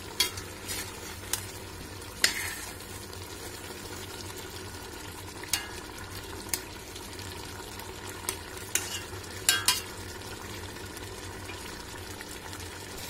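Pork pieces sizzling in olive oil and wine in a stainless-steel pot, being browned. A metal spoon stirs them, clinking and scraping against the pot about ten times.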